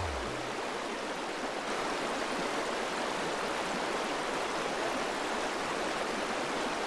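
Steady rushing of a mountain trout creek's flowing water, with the last low notes of background music dying away in the first half-second.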